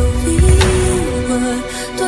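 Music: a slow, sad pop ballad with a steady bass beat and a held melody line that glides slowly in pitch, no words sung.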